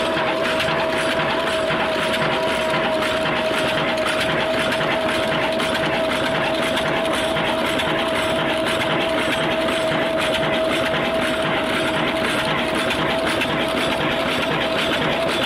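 Old Ruston-type stationary diesel engine running steadily, with a constant whine over its fast, even beat.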